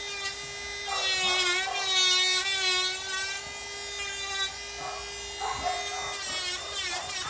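Handheld electric pet nail grinder running with a steady hum at an English bulldog's paw, its pitch bending now and then as it works the nails. A high wavering whine rises and falls over it, twice.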